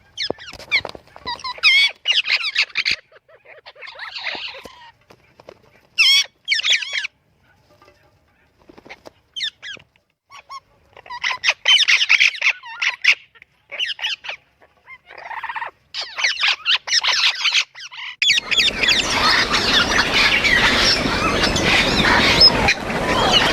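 Parrot calls: scattered whistles, squawks and chattering notes with short silences between them, then a loud, unbroken stretch of harsh calling over the last few seconds.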